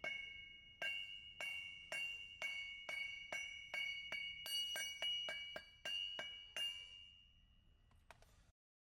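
Metal wheel spacer being struck repeatedly to seat it on the hub, about two sharp strikes a second, each ringing at the same bright pitch. The strikes fade out after about seven seconds.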